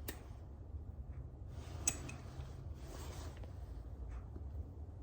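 A steady low hum with a sharp click at the start and another about two seconds in, and two brief soft rustles, like small handling or rustling noises.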